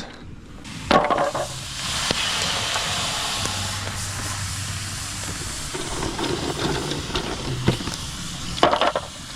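Rapana sea snails in their shells hissing and steaming on a campfire, with a sharp knock about a second in.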